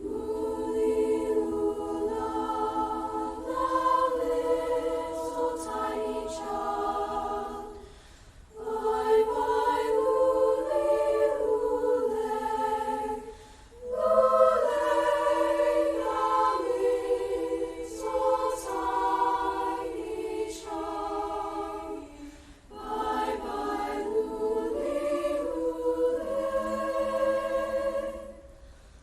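A student choir singing a cappella in four phrases, with short breaks between them.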